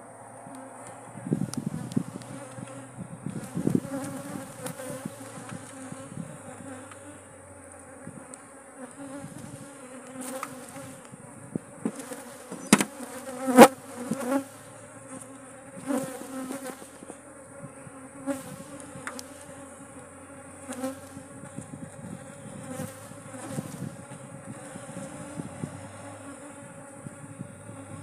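Honeybees buzzing in numbers around an opened hive, a steady hum; the colony is agitated and defensive. A few sharp knocks cut through, the loudest a pair about halfway through.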